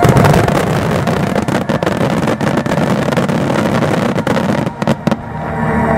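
Finale barrage of a starmine fireworks display: many aerial shell bursts overlapping in continuous bangs and crackling with a heavy rumble, thinning to a few last sharp cracks about five seconds in.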